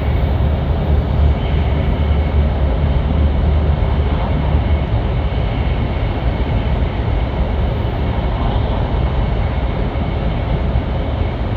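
Steady running noise of a Hokuriku Shinkansen train heard from inside the passenger cabin: an even rumble with a continuous rushing hiss and no distinct events.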